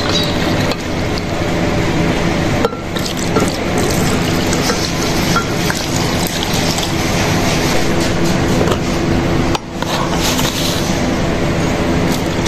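Milk poured in a steady stream, first from a plastic jug into a steel cup, then from the steel cup into a glass blender jar over mango pieces.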